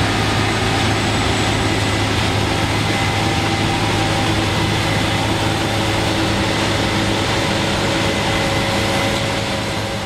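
Heavy farm machinery engines running steadily, a constant low drone with steady higher whines over it, beginning to fade out at the very end.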